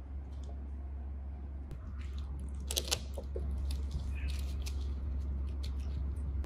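Scattered small clicks and rustles of a baby monkey handling spiky rubber toy balls on a foam play mat, with a louder rustle about three seconds in, over a steady low hum.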